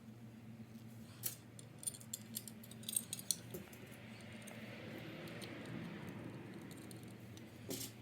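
Light metallic clinks and rattles of small metal parts being handled, followed by a faint steady hiss in the second half over a low constant hum.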